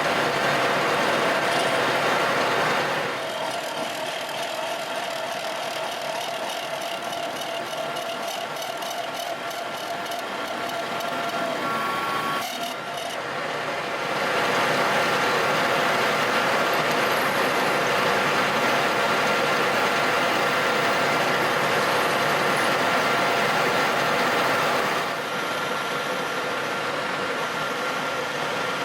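Electric arc welding on galvanised steel, a continuous crackling hiss, as a lifting pin is welded onto square hollow section. It runs in long stretches, louder for the first few seconds and again through most of the second half, and a little quieter in between.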